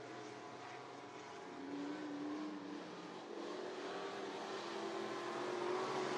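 Several dirt-track stock car engines running on the oval, their pitches rising and falling as they circle, growing louder toward the end.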